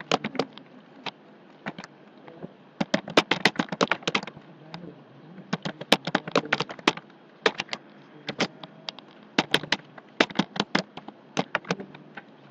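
Typing on a computer keyboard: quick runs of keystroke clicks separated by short pauses.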